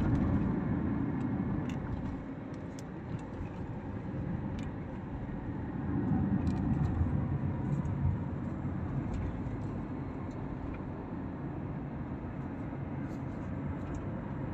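Steady low rumble of road and engine noise inside a moving car's cabin, swelling a little about six seconds in.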